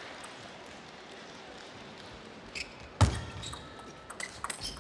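Table tennis ball play in a quiet hall: a lull, then a loud sharp knock about three seconds in as the point starts, followed by quick clicks of the plastic ball on bats and table in a rally.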